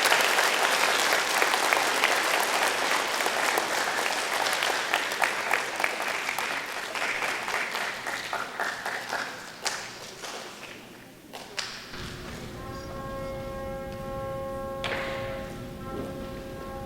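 Audience applauding, fading out over about ten seconds, with a couple of thuds near the end. Then a brass instrument begins slow, long held notes.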